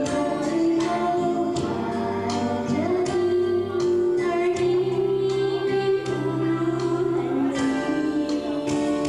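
A song sung over instrumental accompaniment, with held notes throughout.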